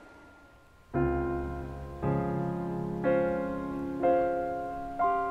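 Background piano music: slow chords struck about once a second, five in all, each ringing on and fading, after a quiet first second.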